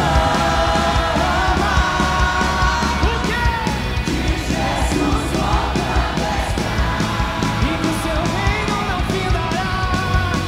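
A live band playing rock-style Christian worship music: a voice sings long held notes over a steady beat of drums and a heavy bass.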